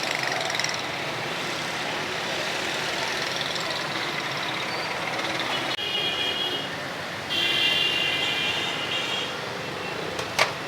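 Steady street traffic noise. A high, steady horn-like tone sounds twice, briefly about six seconds in and longer from about seven seconds. A sharp knock comes near the end.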